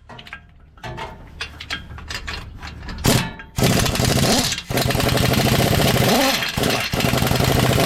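Impact wrench hammering in three long runs with short gaps, loosening bolts, after a few light tool clinks in the first seconds.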